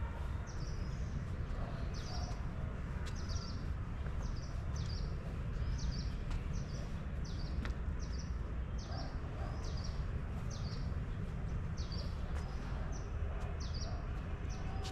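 A bird calling over and over, short high chirps repeated about three times every two seconds, over a steady low outdoor rumble.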